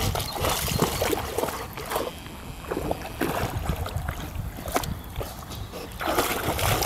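Water splashing and sloshing irregularly as a dog wades through the shallow edge of a pond.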